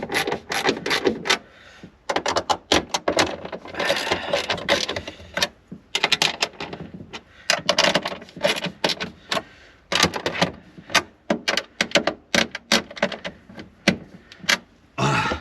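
Irregular clicking, knocking and rattling of hard parts being handled and fitted during hands-on car repair work, with short stretches of rustling and scraping.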